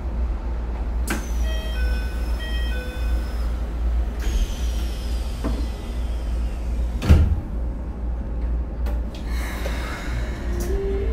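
Keikyu New 1000 series train with a Siemens 'doremifa' VVVF inverter, heard from on board over a steady low running rumble. A loud thump about seven seconds in. Near the end the inverter begins its stepwise rising musical scale as the train pulls away from a stop.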